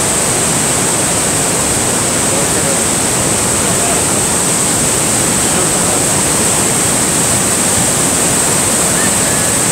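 Niagara Falls heard at close range: a loud, steady rush of falling water with a strong high hiss, unchanging throughout.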